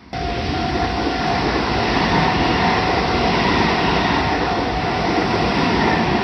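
Meitetsu Nagoya Main Line electric train running through a level crossing, a loud steady rumble of wheels on rails. The crossing's electronic warning bell keeps ringing faintly under it.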